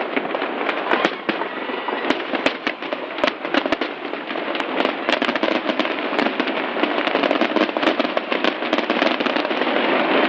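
Fireworks display going off: a dense, continuous crackle of many small bangs, with sharp louder pops scattered throughout.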